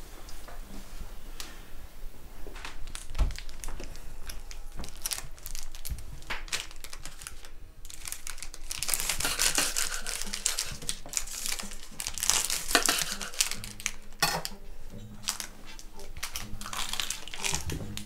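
Foil wrappers crinkling and rustling in irregular, crackly bursts as foil-wrapped bars are handled and unwrapped, busiest in the middle of the stretch.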